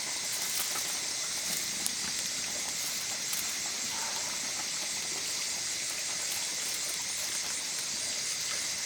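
Steady high hiss of pork sizzling as it cooks, with a few faint crackles.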